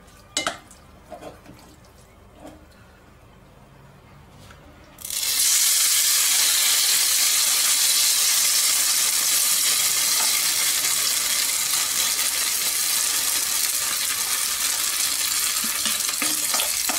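Grated-potato rösti batter frying in hot vegetable oil in a nonstick pan: after a few light clicks, a loud sizzle starts suddenly about five seconds in, as the batter goes into the oil, and then runs on steadily.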